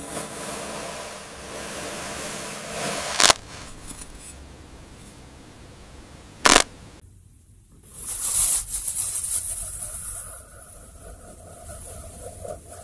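AI-generated ASMR sound of a spoon and a metal tool cutting into a soda can made of kinetic sand: grainy scraping and crumbling with two sharp clicks, about three and six and a half seconds in. After about eight seconds a louder, hissing crunch of sand being sliced takes over.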